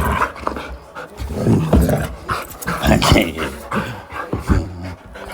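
A dog making short, low growls and pants one after another while playing.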